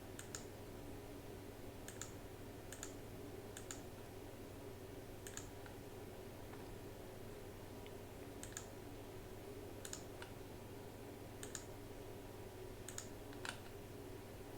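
Faint clicking at a computer while browsing sounds: about ten short clicks at irregular intervals, most of them a quick press-and-release pair, over a steady low hum.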